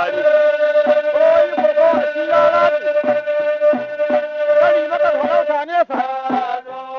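Hausa traditional praise-song music: one long held note for about five seconds over a repeating drum beat, breaking off briefly near the end.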